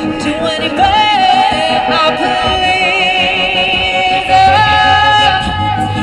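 A female voice sings long, high held notes with vibrato into a microphone, stepping up in pitch about four and a half seconds in.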